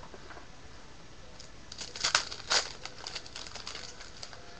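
Foil wrapper of a Panini Contenders trading-card pack crinkling as it is handled, a run of sharp crackles starting about a second and a half in, with the loudest two about two and two and a half seconds in.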